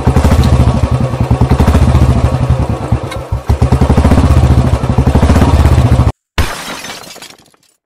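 Motorcycle engine, a rapid even putter running loud, which cuts off suddenly about six seconds in. A brief noisy sound follows and fades away within about a second.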